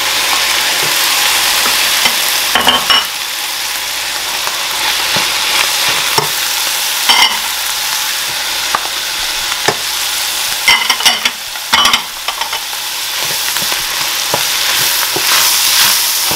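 Ground beef and freshly added diced tomatoes sizzling in a stainless steel skillet while a wooden spoon stirs them. A few sharp clinks stand out, several close together a little past the middle.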